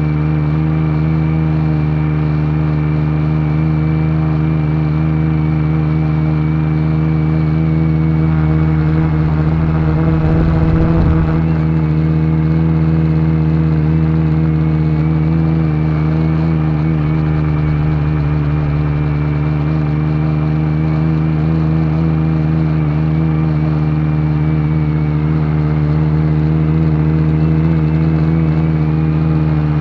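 Electric motors and propellers of a multirotor drone, heard through its onboard camera: a steady hum that wavers slightly in pitch. A brief low rumble of wind on the microphone comes about ten seconds in.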